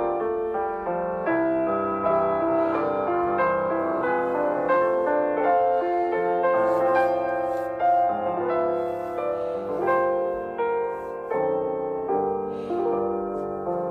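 Background music: gentle piano-led instrumental with sustained chords and a melody.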